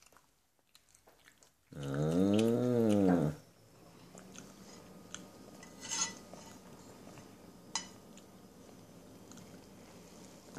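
A drawn-out hummed vocal call about two seconds in, lasting about a second and a half, its pitch rising then falling. A couple of light clinks of a fork against a ceramic plate follow later.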